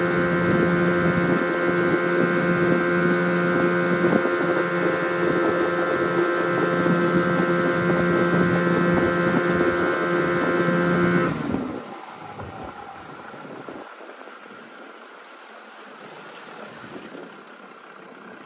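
Evinrude 9.9 hp two-stroke outboard motor running steadily under way. About two-thirds of the way through it is throttled back sharply and drops to a much quieter idle.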